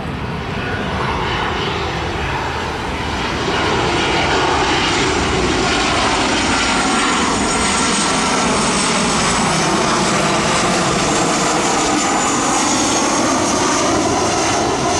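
Jet engines of a Boeing 737 airliner on final approach, passing low overhead: a steady rumble with a high whine that grows louder about three to four seconds in and then holds, its tones slowly sliding in pitch as it goes by.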